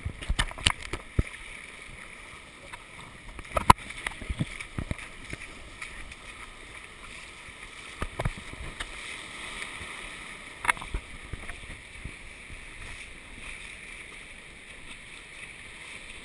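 Shallow surf washing around a GoPro at the waterline, with a few sharp water splashes against it, the loudest about four seconds in.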